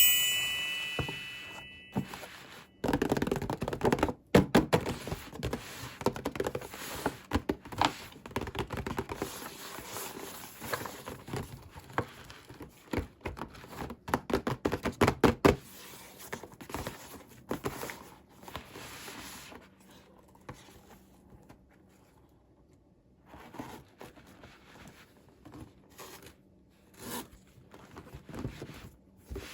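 Toy packaging being opened by hand: rustling and tearing with many light knocks and clicks of small plastic pieces, busiest in the first half. The handling then thins to scattered taps, with a short near-quiet stretch in between.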